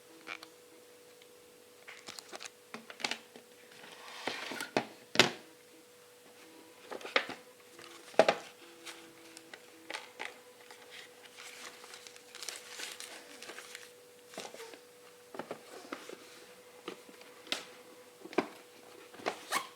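Irregular taps, clicks and knocks of a smartphone and its packaging being handled, with two brief rustles of packaging, over a faint steady tone.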